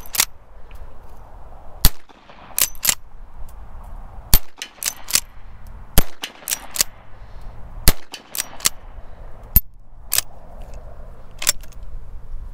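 Replica Winchester 1866 saddle ring carbine, a lever-action rifle, fired five times about two seconds apart. Between shots come quieter clicks and clacks as the lever is worked to chamber the next round.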